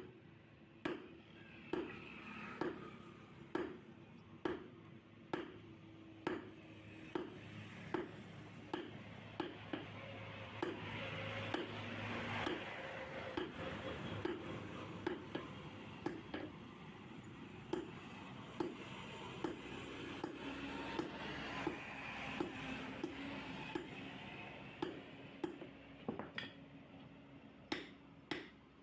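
Blacksmith's hammer striking iron on an anvil, about one blow a second with a ring after each, quickening near the end, as a horseshoe is forged.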